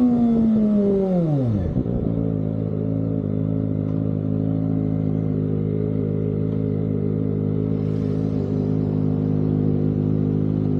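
Kawasaki ZX-25R's inline-four engine with an aftermarket Austin Racing exhaust. The revs fall away over the first two seconds, then the engine settles into a steady idle.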